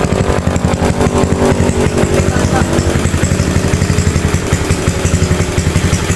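Honda CS1 single-cylinder four-stroke engine, with a ported head, running steadily through a Norifumi Roket 4 muffler on a dirt bike. It makes an even, rapid exhaust pulse.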